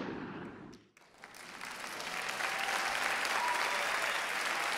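Studio audience applauding. The applause swells up after a brief near-silent gap about a second in, then holds steady.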